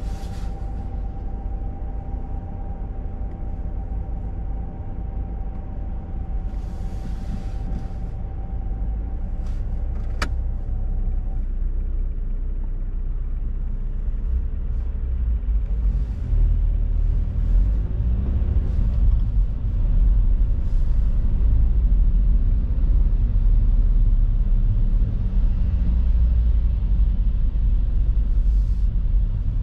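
Heard from inside a car's cabin: the engine idles steadily in stationary traffic, with a single sharp click about ten seconds in. From about halfway through, the car moves off and a louder low rumble of engine and tyres on the wet road builds.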